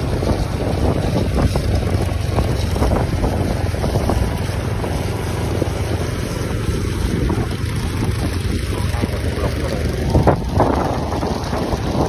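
Wind buffeting the microphone while riding at speed in wet, foggy weather, over a low rumble of road and engine noise. The wind surges harder about ten seconds in.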